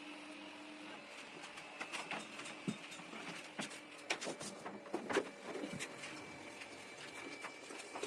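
Irregular light clicks and knocks from hand work on an air-conditioner installation, over a faint steady hum; a low hum drops out about a second in.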